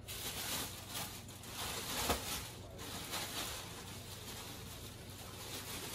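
Plastic wrapping rustling as a bagged statue piece is handled and pulled from its packaging, with one soft knock about two seconds in.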